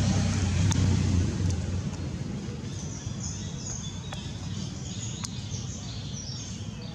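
Outdoor ambience with a low rumble that fades after the first two seconds, then birds chirping in short high notes from about three seconds in.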